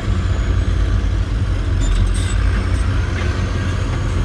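Caterpillar D7R crawler dozer's diesel engine running steadily as it pushes a load of dirt with its blade.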